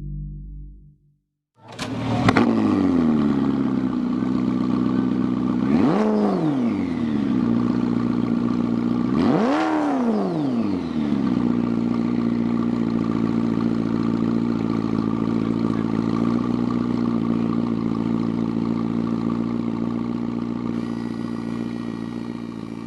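A car engine starts about two seconds in, flaring up on catching before settling. It is revved twice with quick throttle blips, then idles steadily.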